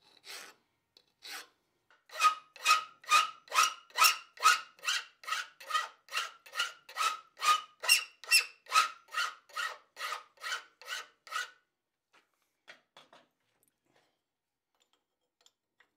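Hand file cutting bevels into the end of a forged steel hook held in a bench vise: a few scattered strokes, then a steady run of about two push strokes a second, each with a faint ringing note from the metal. The filing stops about three-quarters of the way through, leaving only faint handling sounds.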